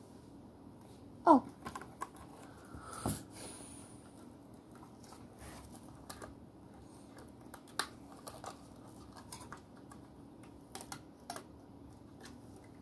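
Small plastic toy pieces being handled, giving scattered light clicks and taps, with one short falling squeak about a second in.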